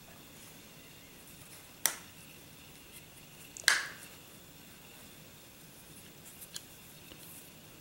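Pistol grip panels snapping into place on the Norinco 213 frame as they are pressed down: two sharp clicks about two seconds apart, the second louder, then a few faint ticks near the end.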